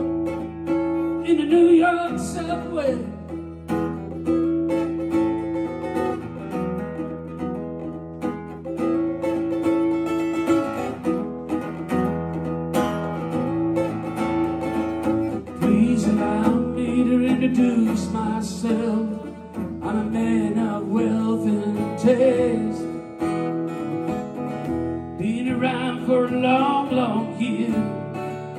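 Solo acoustic guitar played live through a PA in an instrumental passage of a song, picked and strummed over steady low notes.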